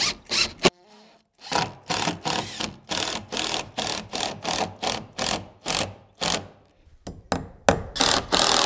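Makita 18V cordless impact driver hammering a long GRK structural screw through a door hinge into the jamb and framing, in pulses about three a second. It starts about a second and a half in, stops briefly, then resumes louder near the end as the screw draws the hinge-side jamb back tight.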